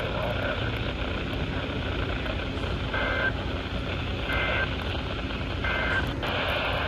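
Three short, high beeps about 1.3 seconds apart over a steady rushing noise with low rumble.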